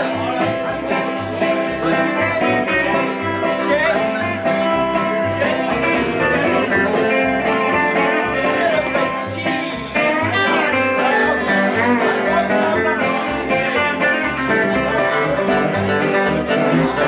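A live band plays a country-blues tune: electric guitar over a second guitar and an upright bass playing steady, evenly paced bass notes.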